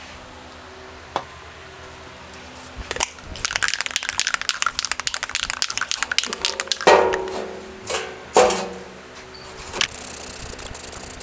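Aerosol can of rust primer being shaken, its mixing ball rattling rapidly, with two louder sharp clatters after it; near the end, the steady hiss of the can spraying.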